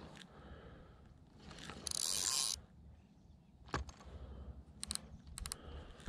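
Fishing reel being cranked to bring in a line that turns out to be snagged, with scattered mechanical clicks and rattles. A short, loud hiss about two seconds in is the loudest thing.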